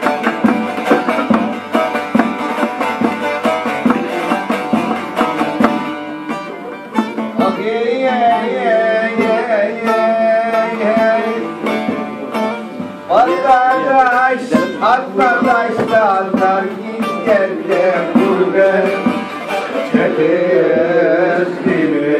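Bağlama (long-necked Turkish saz) strummed and picked at a brisk pace, with a man's voice singing a folk melody over it from about seven seconds in.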